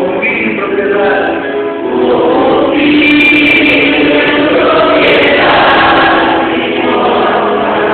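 A group of voices singing a hymn together in long held notes.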